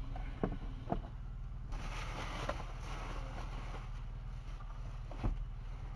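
Steady low hum of an idling vehicle engine heard from inside a car, with a few small clicks and a rushing hiss that starts about two seconds in.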